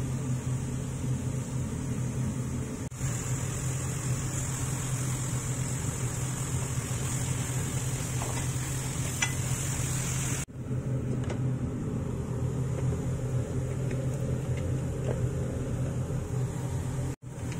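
Steady low mechanical hum with a high hiss over it. The hiss is brighter through the middle stretch, where mushrooms and onions are being stir-fried in a frying pan. The sound drops out for an instant twice.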